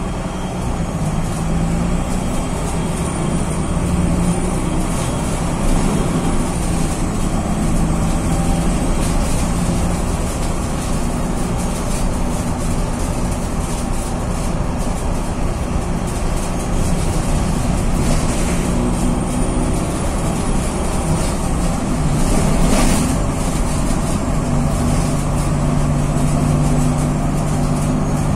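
Engine of a VW 26.330 OTA city bus running under way, heard from the rear of the cabin, its note shifting as the bus pulls and eases off. A faint high whine rises and falls twice, and there is one short knock about three-quarters of the way through.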